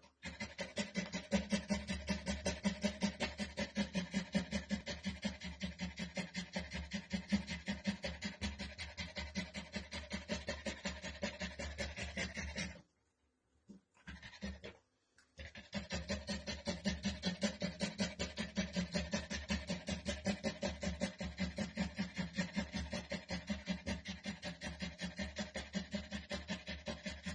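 French bulldog panting fast and steadily, open-mouthed, while in labour, with a short break about halfway through.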